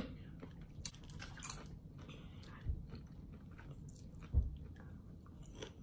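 Popcorn being chewed, with faint crunches and small clicks. There are two soft low thumps, about two and a half and four and a half seconds in.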